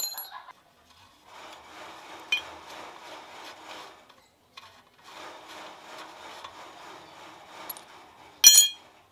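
Gritty scraping of a rusty threaded bicycle bottom bracket cup being turned out of the frame's shell by hand, in two stretches of a few seconds each. A small clink a couple of seconds in, and a sharp, ringing metallic clink near the end, the loudest sound.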